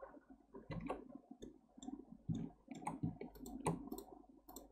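Computer mouse and keyboard clicking in irregular single clicks that come quicker in the second half.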